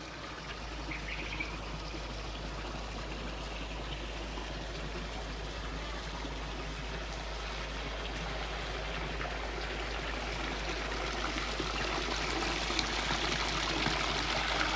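Water running steadily into a tarpaulin-lined fish tank as it is refilled after the waste water has been pumped out, growing gradually louder toward the end.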